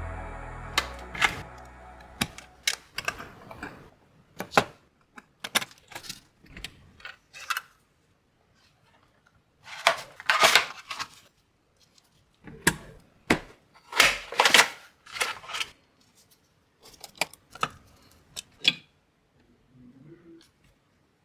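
Computer parts being handled during a PC build: irregular clicks, taps and light rattles of small hard parts, with short pauses between.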